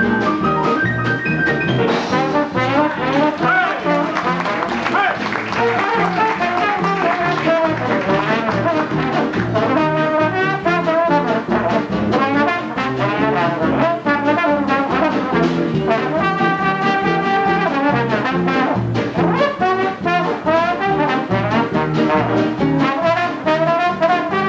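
Swing jazz band playing live, with a trombone prominent among the horns over the rhythm section.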